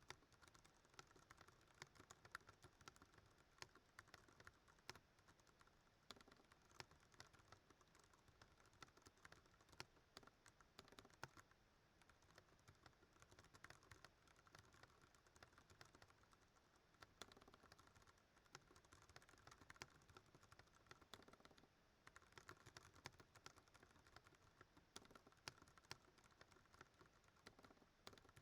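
Fast, steady touch-typing on a Ducky One 2 Mini mechanical keyboard with Cherry MX Brown tactile switches: a quiet, continuous, irregular clatter of keystrokes, several per second.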